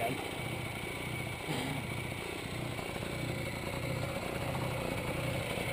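Small motorcycle engine idling steadily, just restarted after taking on water and stalling.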